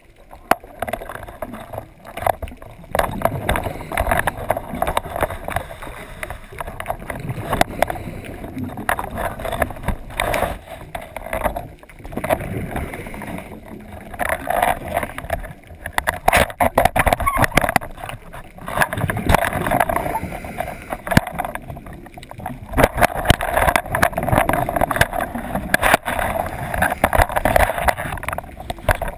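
Underwater sound through the GoPro housing on a lobster snare: bouts of a diver's exhaled bubbles rushing and gurgling every few seconds, with scattered sharp clicks and knocks of the snare pole and housing.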